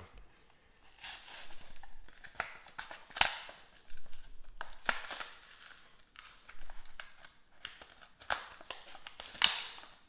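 Plastic blister pack being pulled off its paper backing card by hand: a string of short paper rips and plastic crinkles, the loudest near the end.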